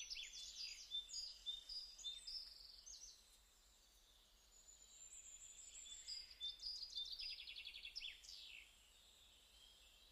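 Faint bird calls: high chirps, quick trills and short falling whistles in two bouts, with a pause of about two seconds between them.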